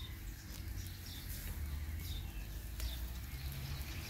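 A small bird chirping short, falling notes again and again, under a second apart, over a faint steady hiss and low rumble, with a light click or two.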